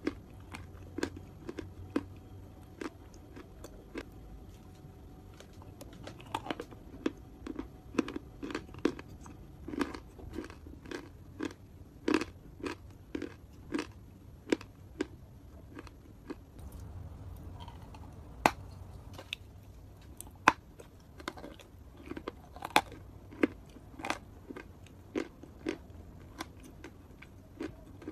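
A person chewing wet chalk paste: irregular crisp crunching clicks, roughly one or two a second, with a few sharper, louder crunches standing out.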